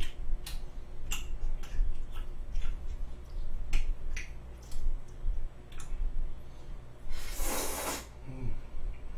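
Close-miked eating of spaghetti: chewing and lip smacks making a string of short wet clicks, then, about seven seconds in, a loud slurp of noodles lasting about a second.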